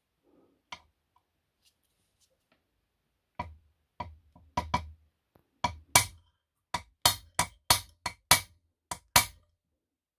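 Hammer striking a steel punch against a motorcycle engine case, a run of sharp metallic taps about three a second that grow louder partway through. The punch is peening dots around the bearing seat to tighten a bearing fit that has worked loose.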